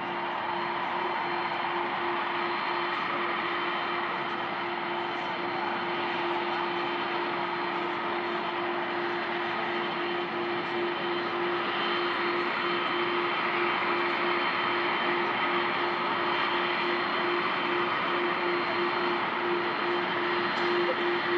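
Jet engines of Air Force One, a Boeing 747 (VC-25A), taxiing: a steady rushing noise with a constant droning tone, growing slowly louder as the plane comes closer.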